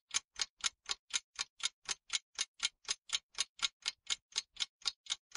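Steady clock-like ticking sound effect, about four sharp ticks a second.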